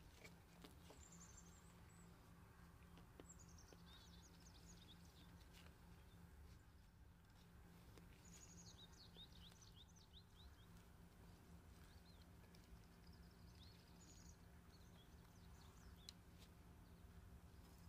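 Near silence: a faint steady hum with a few quiet bursts of bird chirps and tweets.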